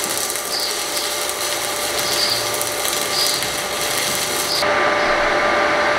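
Stick-welding arc from a 2.5 mm E6013 electrode on a Smarter StarArc 200M inverter set to 50 amps, crackling and hissing steadily, then breaking off about four and a half seconds in, leaving a steady hum. The current is too low for the 3 mm angle iron being welded.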